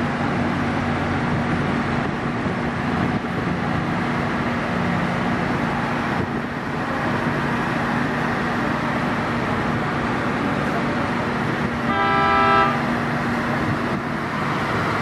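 Heavy rail-construction machinery running steadily with a low hum. About twelve seconds in, a horn gives one short toot, under a second long.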